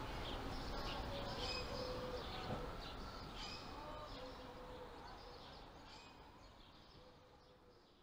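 Birds chirping and calling over a steady ambient hiss, the whole sound fading out gradually over the last several seconds.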